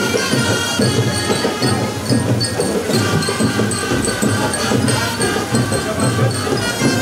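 School marching band playing a tune: trumpets with drums and bell lyres.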